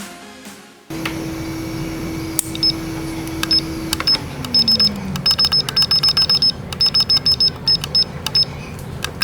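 Short high-pitched electronic beeps, many in quick irregular runs, over a steady hum that slides down in pitch about four seconds in, with a few light clicks.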